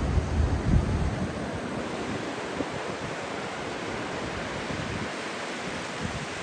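Ocean surf washing onto the beach as a steady hiss, with wind buffeting the microphone in the first second or so.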